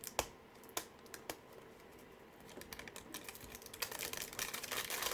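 Three sharp plastic clicks in the first second and a half, then plastic packaging crinkling and rustling as a fruit surprise container is unwrapped, louder from about four seconds in.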